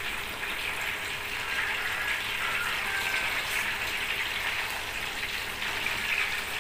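Whole snakehead fish frying in hot oil in a wok: a steady sizzling hiss.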